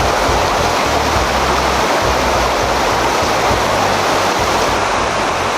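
Rushing water of the Sandy River running high after rain, a loud, steady, unbroken rush.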